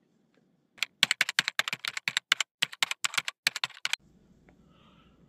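Rapid keyboard typing clicks, a fast run of keystrokes lasting about three seconds that starts about a second in and stops sharply, laid under an on-screen character title card.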